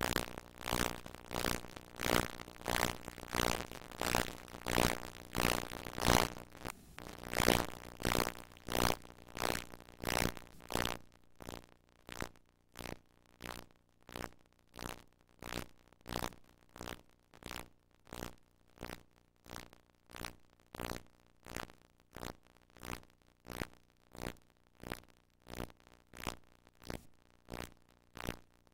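A regular pulsing noise, about two pulses a second, louder for roughly the first eleven seconds and then quieter.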